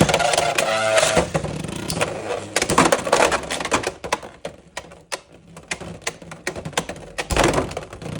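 Two Beyblade X spinning tops, Dran Buster and Hells Hammer, are ripped from their launchers with a brief whir. They then clash in a plastic stadium, giving rapid irregular clicks and hard hits against each other and the walls, with a burst of heavy impacts near the end.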